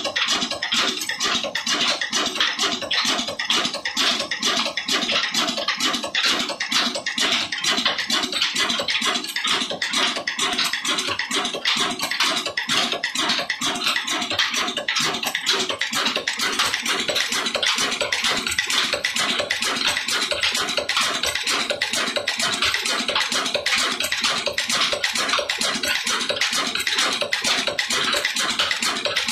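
Ruston Hornsby stationary diesel engine running at a steady speed, a rapid, even mechanical clatter that does not change.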